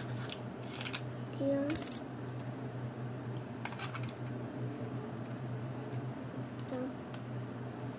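A coin clinks as it drops through a toy vending machine built from plastic LEGO bricks, with a sharp click about two seconds in and lighter clicks of the bricks being handled. A steady low hum runs underneath.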